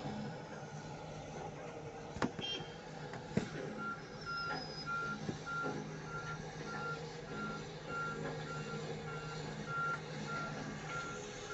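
Backup alarm on heavy equipment beeping steadily, about one and a half beeps a second, starting a few seconds in, over the steady run of a diesel engine. Two sharp knocks sound before the beeping starts.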